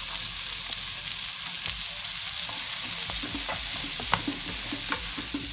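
Diced carrot, garlic, shallots and red chilies sizzling in hot oil in a wok, stirred with a spatula. From about halfway the spatula scrapes and taps against the pan, with one sharper tap about four seconds in.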